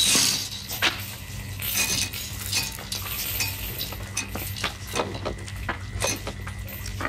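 Irregular small metallic clinks and clicks over a steady low hum.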